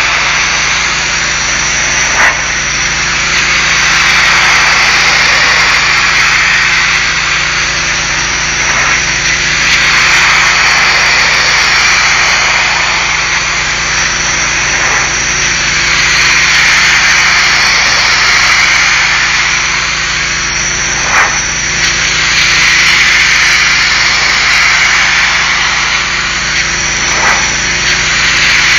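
High-pressure washer spray hissing against a brick wall, swelling and fading in slow waves as the wand sweeps back and forth, over a steady low engine hum. A few short sharp clicks.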